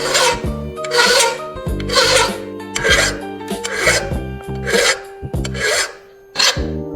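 Rhythmic hand rasping strokes, about one a second, typical of sanding or filing by hand, with a brief pause about six seconds in. Background music with sustained notes plays underneath.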